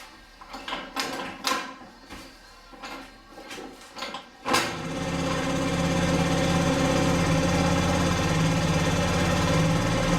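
Scooter kickstarter worked with several strokes, clicking and knocking, with its ratchet newly replaced. The small engine catches about four and a half seconds in and then runs steadily.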